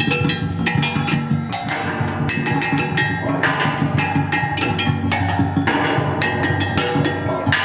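Metal sound sculptures struck with mallets in a fast improvised rhythm: a dense run of strikes, each leaving a ringing pitched tone, with low tones sounding steadily underneath.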